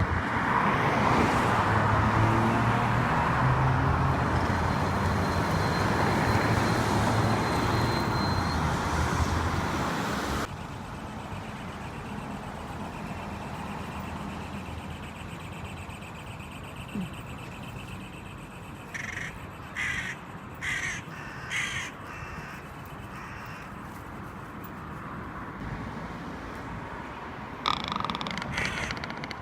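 Crow cawing: four short harsh caws about two-thirds of the way through and another run of caws near the end. This crow's voice is peculiarly nasty. A loud, even rushing noise fills the first ten seconds, then drops away.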